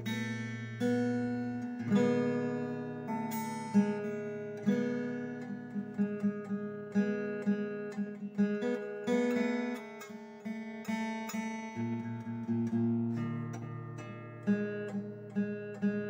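Background music: acoustic guitar playing a run of plucked notes that ring and die away over held bass notes.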